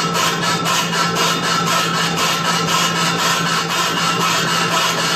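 Machine tool running, with a steady hum and a rhythmic scraping repeating about four to five times a second.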